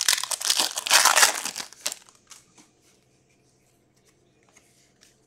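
Hockey trading cards rustling and sliding against one another as a stack is thumbed through by hand, for about two seconds, then a few faint light taps.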